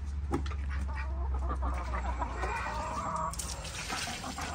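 Domestic hens clucking softly over a steady low rumble.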